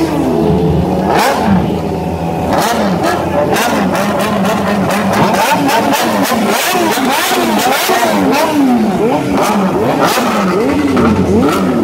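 A Honda Hornet's inline-four engine revved hard again and again with quick throttle blips, its pitch rising and falling about once a second, with sharp pops among the revs.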